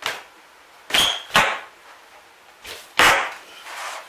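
A large piece of water-rotted plywood subfloor being pried up off the joists by hand, cracking and creaking as it tears free, in several sharp cracks; the loudest come about a second in, just after, and about three seconds in, one with a brief high squeal.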